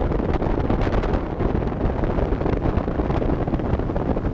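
Wind buffeting the boat-mounted camera's microphone: a steady, loud rumble with crackling gusts and no clear engine tone.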